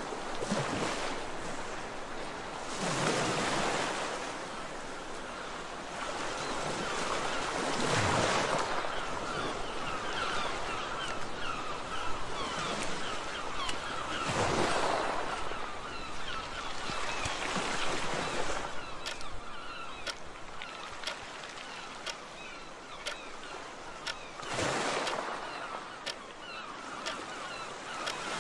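Sound-effect track of sea waves washing in and drawing back, several swells rising and fading in turn, with birds calling through the middle. In the last third a clock ticks about once a second.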